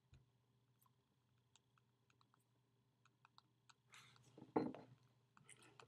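Faint, scattered wet mouth clicks from chewing a fresh pinch of chewing tobacco. There is a short throaty sound from the chewer about four and a half seconds in.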